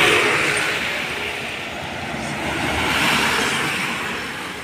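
Trucks passing by on a road, their tyre and engine noise swelling and fading twice, about three seconds apart.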